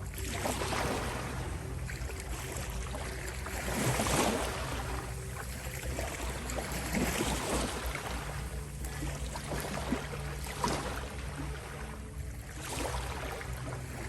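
Ocean waves washing in and pulling back, a surge every two or three seconds with the biggest about four seconds in, over steady low humming tones.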